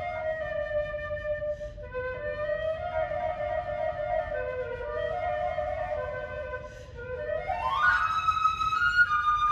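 Music: a slow flute melody of long held notes, which slides up to a higher sustained note near the end.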